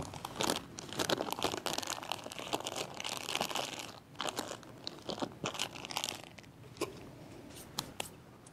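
Plastic zip-top freezer bag of soil crinkling and crackling as it is handled, in irregular crackles that thin out toward the end.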